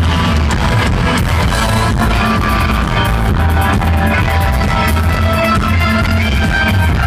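Live rock band playing loud, heard from the crowd: electric guitars, bass and a drum kit keeping a steady beat.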